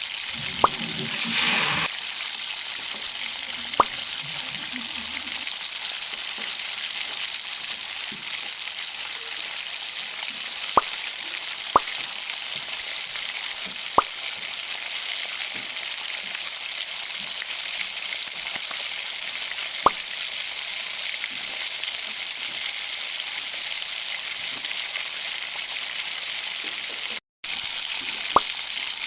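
Chicken frying in hot oil in a pan: a steady sizzle, with a rougher, louder stretch about a second in and a few sharp clicks scattered through it. The sound cuts out briefly near the end.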